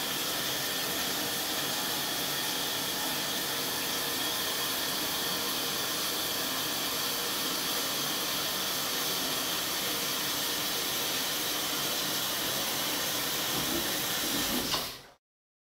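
Water spraying steadily from a 1.5-gallon-per-minute low-flow massager showerhead, then stopping abruptly near the end.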